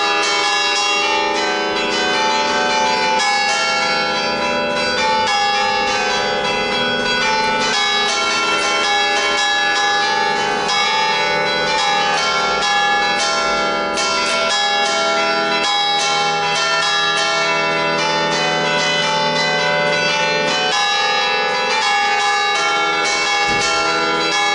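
A set of five church bells tuned in E (tonic E3), cast by Ottolina of Seregno, ringing a festive peal (suonata a festa). The bells swing on their wheels under electric drive worked by hand, striking in quick, overlapping succession so that a steady wash of ringing tones carries on throughout.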